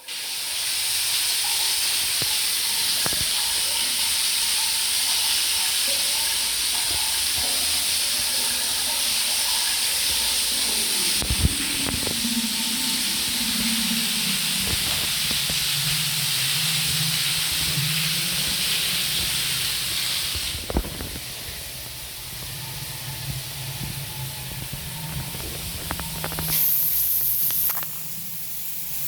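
Water running from a bathroom tap or shower fitting, a steady spraying hiss that starts suddenly. It gets quieter about twenty seconds in, with a short, harsher burst of spray near the end.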